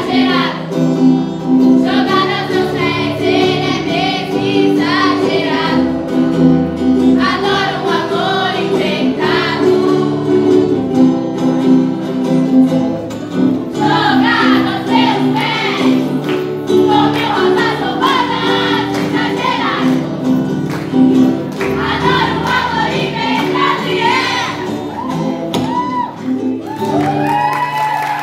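A group of young mixed voices singing together in unison and harmony to acoustic guitar accompaniment, phrase after phrase over steady chords, with a last held phrase near the end.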